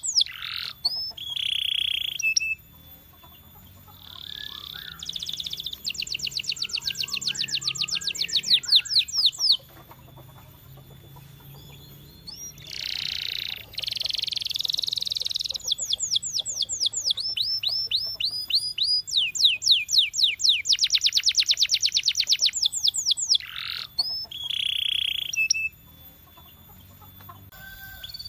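Domestic canary singing: phrase after phrase of fast trills made of rapidly repeated sweeping notes, broken by a few short held notes and brief pauses.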